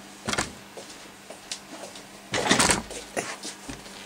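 A light knock, then a louder scraping rustle about two and a half seconds in, followed by a few small clicks: close-up handling noise.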